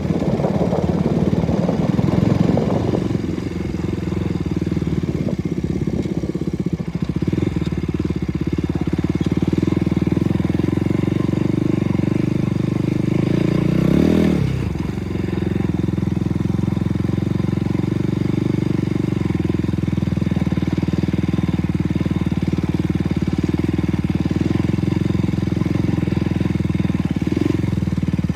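KTM RC 200's single-cylinder engine running steadily. Its revs dip sharply and pick up again about halfway through.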